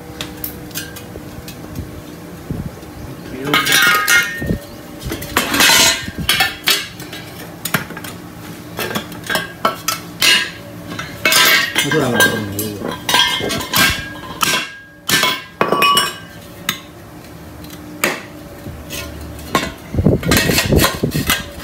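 Rusty square steel tubing clanking and scraping against other steel parts and the concrete floor as it is handled and fitted, in irregular clusters of metallic knocks and clinks.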